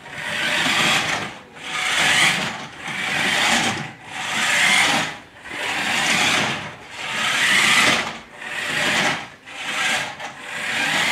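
Remote-control toy Chevy Camaro ZL1 driving on a hardwood floor: its small electric motor whirring and its tyres scrubbing on the wood, in repeated surges about every second and a half.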